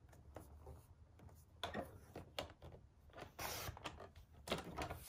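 Light rustles and taps as a strip of card is slid into place on a paper trimmer, then the trimmer's blade slider is gripped and run along to cut it, with a cluster of small clicks near the end.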